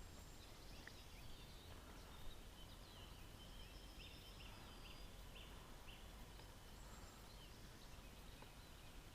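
Faint birdsong: a run of short, high chirps, most of them in the first two-thirds, over a low, steady outdoor background.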